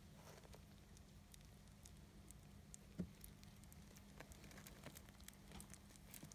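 Near silence with faint, scattered wet clicks and smacks of three-day-old British Shorthair kittens suckling at their mother, and one sharper click about three seconds in.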